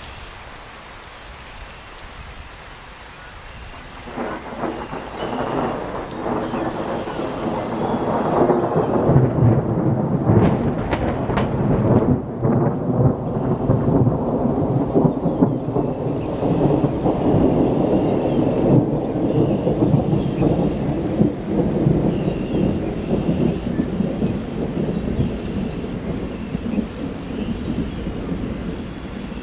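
Loud thunder: a sudden heavy clap about four seconds in, building into a deep rolling rumble with a few sharp crackles, then rumbling on for many seconds as it slowly fades.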